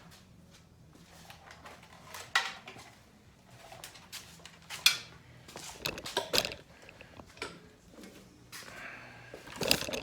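Scattered clicks, knocks and rustling of small objects being handled, likely a multimeter and its leads being fetched and set up; no engine running.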